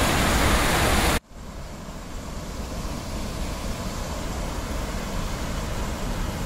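Loud, steady rushing of a flooded river that cuts off abruptly about a second in, giving way to a quieter, steady rushing.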